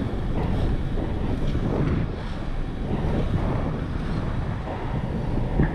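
Heavy wind buffeting an action camera's microphone on an inline skater moving at about 30 km/h, a steady low rushing noise, with the skate wheels rolling on asphalt underneath.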